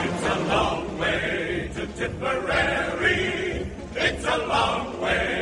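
Background music: a choir singing with instrumental accompaniment.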